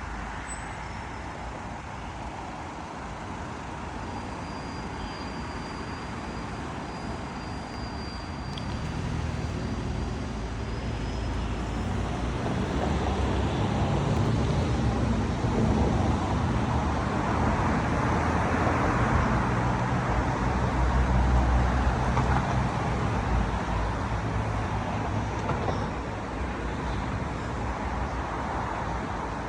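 Street traffic, with a large vehicle's engine hum growing louder about a third of the way in and then slowly fading.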